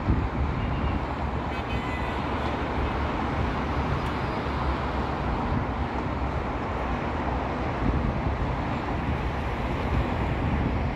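Steady road traffic noise from a busy multi-lane street and flyover, with cars passing below.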